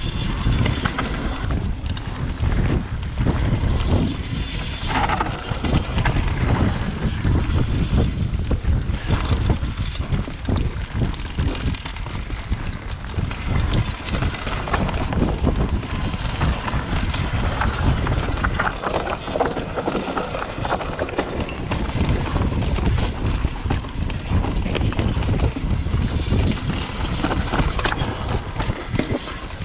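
Wind rushing over the microphone on a fast mountain-bike descent, over the steady rumble of knobbly tyres on a dirt trail, with frequent sharp rattles and knocks from the Orange Stage 6 full-suspension bike as it hits bumps and roots.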